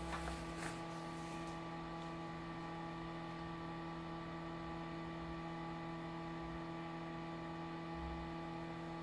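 Steady electrical mains hum with a buzzy stack of overtones, with a few light clicks in the first second.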